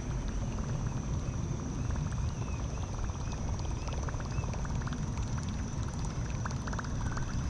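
Outdoor river ambience on a kayak: a steady low rumble with light water patter and scattered small ticks, under a constant high thin whine.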